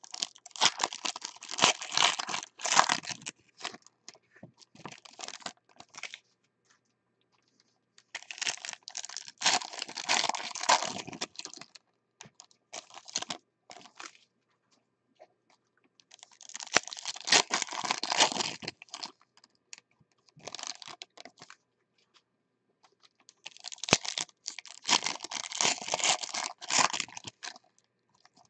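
Foil trading-card pack wrappers being torn open and crinkled, one pack after another, four times about eight seconds apart, with lighter rustles and clicks between.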